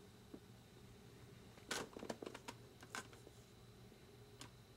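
Near silence broken by a short flurry of faint taps and rustles about two seconds in, from a cardboard tool box being handled and turned over.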